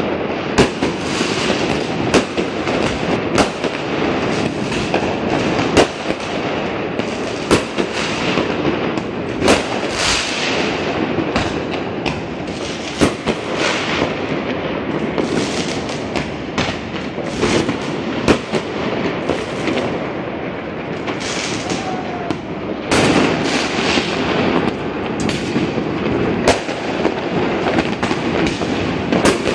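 Fireworks and firecrackers going off all around: many sharp, irregular bangs over a constant din of further explosions.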